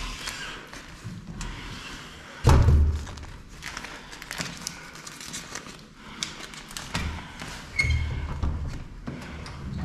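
A door thuds heavily about two and a half seconds in, with its lever handle worked around it. Knocks and handling noise follow, then a second, smaller thud with a brief squeak near the end.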